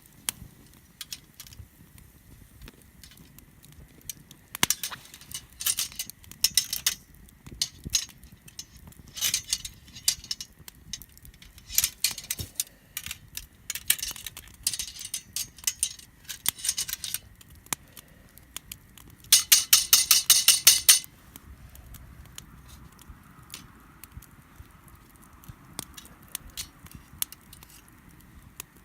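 Camp cookware and utensils clinking and rattling in short runs, with one dense rattling burst about two-thirds of the way in, over scattered campfire crackles.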